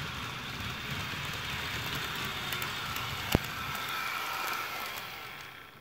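HO scale Norfolk Southern model train running at full speed on its track: the locomotive's small electric motor whines and the wheels rattle on the rails as it passes close by, then fades away near the end. One sharp click sounds about three seconds in.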